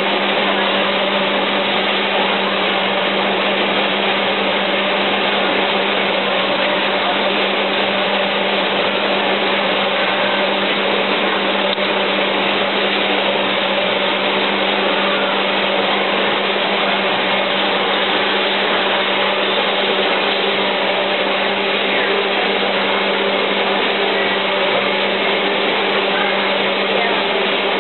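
Steady whirring hum of a running motor or fan, unchanging throughout.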